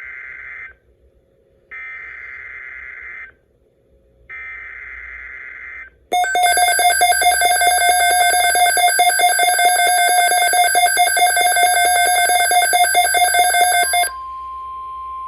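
Emergency Alert System signalling on NOAA Weather Radio: three bursts of the SAME data header, each a warbling screech about a second and a half long. Then a loud, rapidly pulsing alarm tone sounds for about eight seconds, and it drops to a quieter steady single-pitched attention tone that continues to the end.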